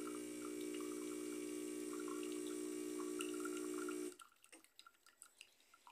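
Oster Prima Latte espresso machine's pump running with a steady hum while liquid trickles and drips into the mug, then cutting off sharply about four seconds in. The machine is working again after its burnt control board was repaired.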